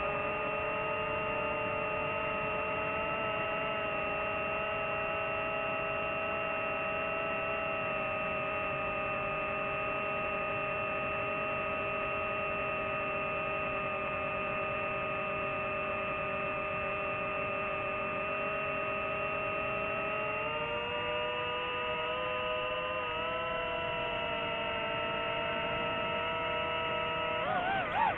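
Electric motors and propellers of a DJI FPV drone whining steadily as a stack of even tones. The pitch steps a little higher about twenty seconds in, and it swoops down and back up near the end as the motor speed changes.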